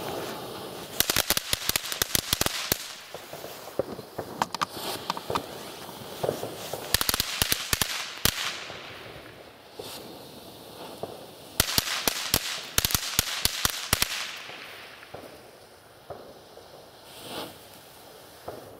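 Weco ground fountain firework spraying sparks with a steady hiss, breaking into three spells of dense crackling about a second in, around seven seconds and around twelve seconds, then dying down to a faint hiss near the end.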